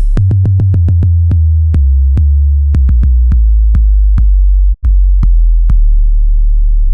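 Heavily bass-boosted electronic music: a very loud, sustained deep bass under a quick run of sharp drum-machine hits that spread out as they go. The sound cuts out briefly nearly five seconds in.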